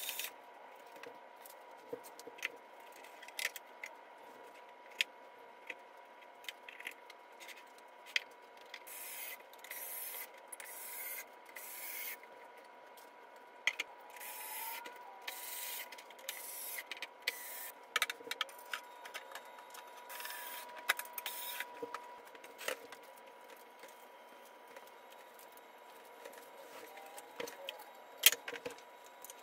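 A small cordless electric screwdriver whirring in short spells as it drives screws into particleboard furniture panels, between knocks and clatter of the wooden boards being handled and set in place.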